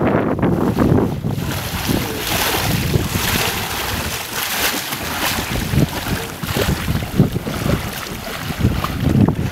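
Wind buffeting the microphone over the hiss and slap of choppy water against a hull.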